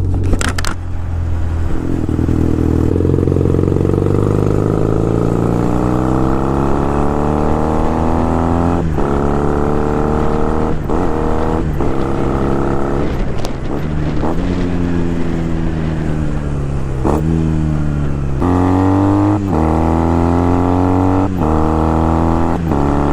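Honda Rebel 250's twin-cylinder engine heard while riding. Its pitch climbs under acceleration and drops sharply at each gear change, about a dozen times.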